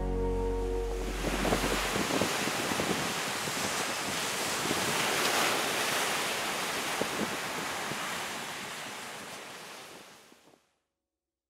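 Sea waves breaking and washing through the surf, with wind buffeting the microphone. The sound fades away and stops suddenly near the end.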